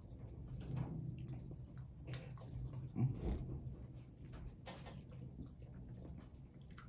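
Close-up eating sounds of people eating chicken wings: chewing with small wet mouth clicks and lip smacks, and one short louder sound about three seconds in.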